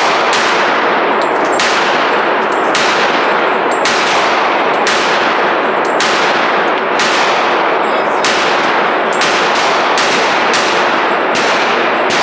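Handgun shots fired one after another at a shooting range, about fifteen sharp reports at an uneven pace of roughly one per half-second to second and a half, each trailing off in echo. The recording is loud and dense throughout, with the shots riding on constant noise.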